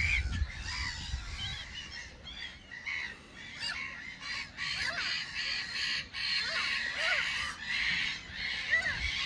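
A flock of gulls calling, many short rising-and-falling squawks overlapping one another.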